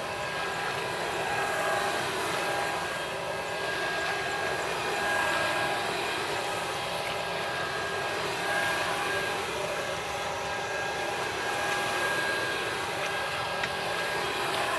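Electric blower sprayer running steadily, its fan giving a constant whine over a rush of air as it blows pesticide spray.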